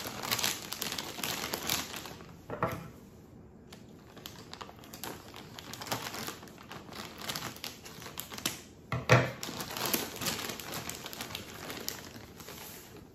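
A silver metallic plastic mailer crinkling and rustling as it is pulled open and handled, with a louder rustle about nine seconds in.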